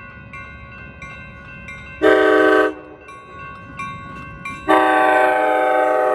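Nathan K5LA five-chime air horn on an ACE commuter train's cab car, sounding for a grade crossing: a short blast about two seconds in, then a long blast starting near the end. Between the blasts a crossing signal bell dings steadily.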